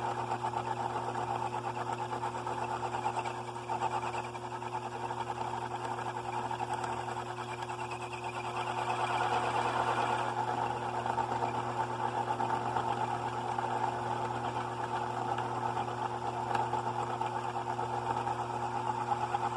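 Radial arm saw's electric motor running steadily, growing louder for a couple of seconds near the middle.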